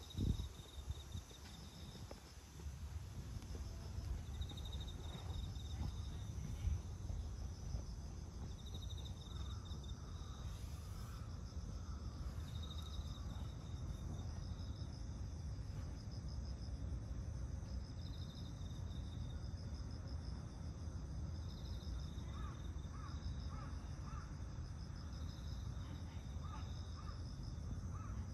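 Singing insects chirping in short pulsed trills at two high pitches, repeating every couple of seconds, over a low steady rumble.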